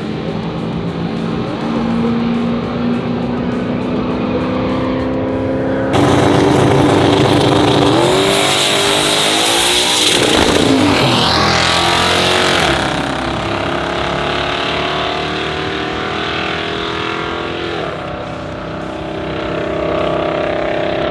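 Car engines running, with one car passing close at speed about ten seconds in, its pitch rising as it comes and dropping as it goes by.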